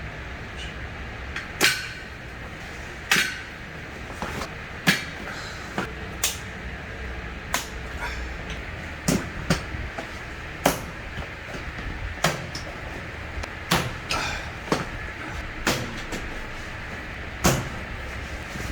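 A series of sharp knocks and clicks, about one every second or two, over a steady low hum.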